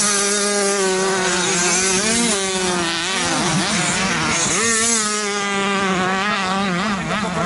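Youth 65 cc two-stroke motocross bikes revving hard, the engine pitch climbing and dropping again and again as the riders work the throttle, over a steady engine hum.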